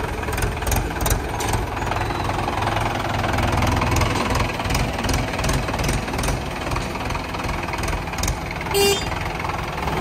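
Diesel engines of a Mahindra 575 DI tractor and a JCB 3DX backhoe loader running close by, with a steady knocking diesel beat. A short beep comes near the end.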